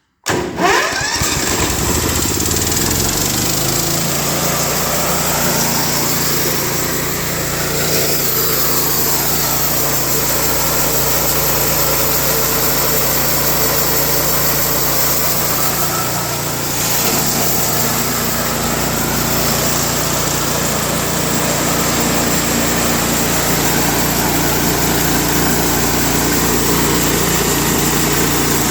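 Wood-Mizer LT15 portable sawmill's engine starting and coming up to speed, then running steadily.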